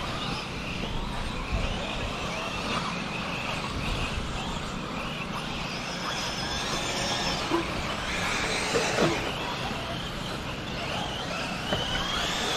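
Several 1/8-scale RC buggies and truggies racing around a dirt off-road track, their motors whining and rising and falling in pitch as they speed up and slow down.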